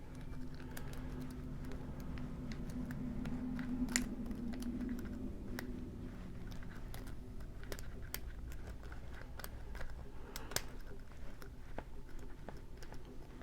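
Small irregular metallic clicks and scratches of a diamond lock pick and tension wrench working the pins of a four-pin Master Lock padlock, with a couple of sharper clicks, over a faint steady hum.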